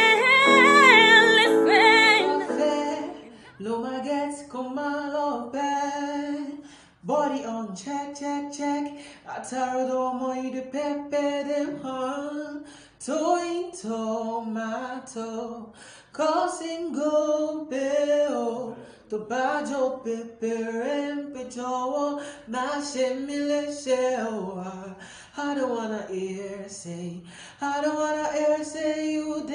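A woman's solo singing voice holds a long note with vibrato and ends about two seconds in; then a young man sings unaccompanied in short phrases separated by brief pauses.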